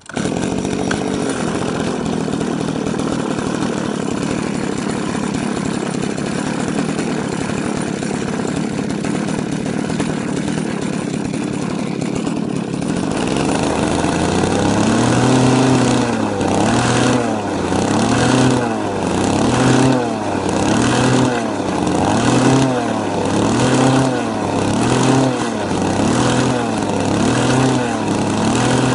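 RC model boat engine running out of the water on its stand, catching right at the start. It runs steadily for about thirteen seconds, then is revved up and down over and over from the radio throttle, roughly once every second and a half.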